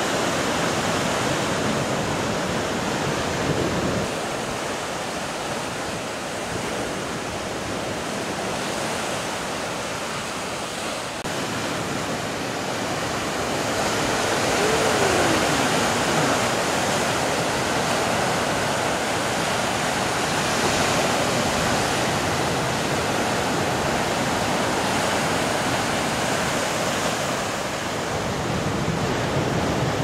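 Caribbean Sea surf: waves breaking and white water rushing onto the shore and against rocks, a steady rush that grows louder about halfway through.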